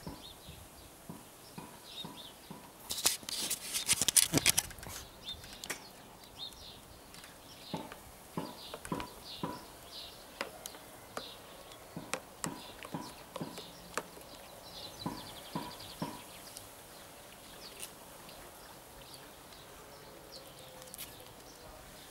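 A cat pawing at toys floating in a plastic tub of water: scattered light splashes and knocks of the toys against the tub, with a louder flurry about three seconds in. Faint chirps of birds in the background.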